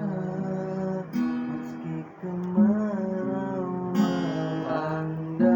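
Acoustic guitar strummed, a new chord struck about every one and a half seconds.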